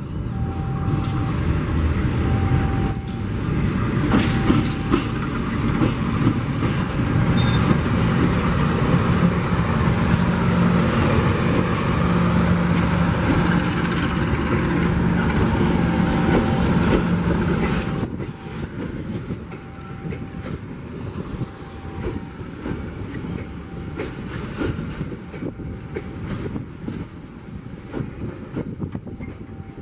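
Diesel-hauled passenger train passing close by. The locomotive's engine drone and the wheel noise are loud for about the first eighteen seconds. The sound then drops to a quieter clickety-clack of coach wheels over the rail joints as the carriages roll past.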